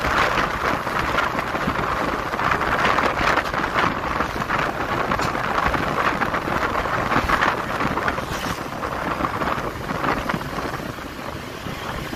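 Wind rushing over the microphone of a camera moving along the road, a steady noise with road and vehicle noise under it; it eases slightly near the end.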